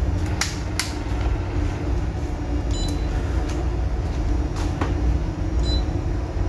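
Steady low machinery hum of an offshore vessel under way. A few sharp clicks and two short high beeps come from the bridge console as its controls are pressed to engage the autopilot.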